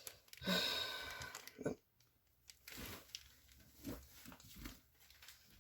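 Foil card-pack wrapper crinkling and rustling for about a second and a half, then a few soft taps and handling sounds.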